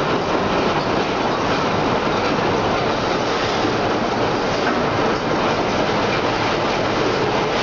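Inclined cleated belt conveyor running, a loud, steady mechanical noise with no pauses.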